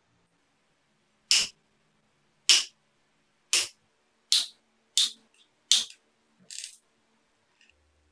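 Side cutters snipping: six sharp snaps about a second apart, then a softer one.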